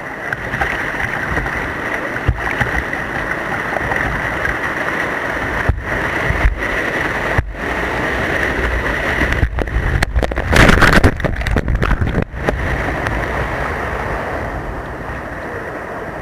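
Rushing, churning white water of a river weir, heard from a kayak passing through the weir's outflow; it is loudest about ten to eleven seconds in, and the sound cuts out briefly several times.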